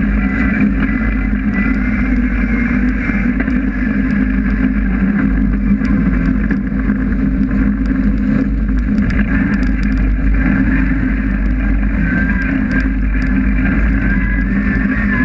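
Honda S2000's 2.4-litre 16-valve four-cylinder engine running hard under load, heard from inside the stripped race car's cabin. The revs stay fairly steady, with small wavers in pitch later on.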